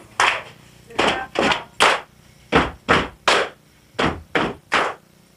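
Hands clapping out a rhythm: sharp single claps at roughly three a second, in short groups separated by brief pauses.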